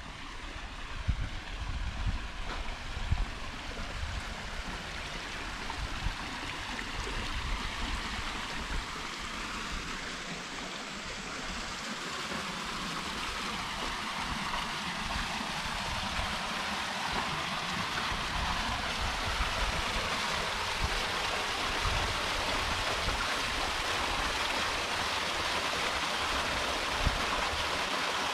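Small waterfall splashing into a rock pool, a steady rush of water that grows louder and brighter about halfway through as it comes closer. There are low bumps and rumbles in the first half.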